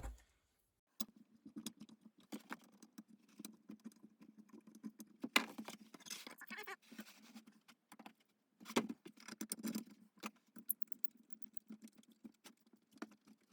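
Metal parts of an old hand plane being handled and fitted during reassembly: irregular clicks, taps and short scraping sounds, over a low steady hum.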